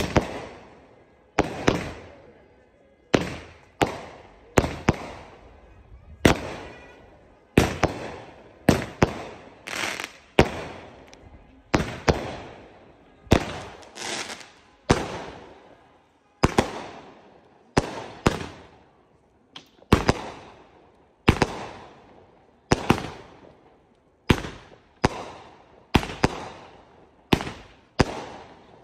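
A 49-shot aerial fireworks cake firing shot after shot: sharp bangs about one to two a second, often in close pairs, each trailing off over about a second.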